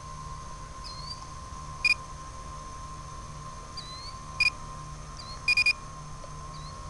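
Short, sharp electronic beeps: one about two seconds in, another at about four and a half seconds, then a quick run of three near the end. Under them runs a steady high electronic whine with a low hum.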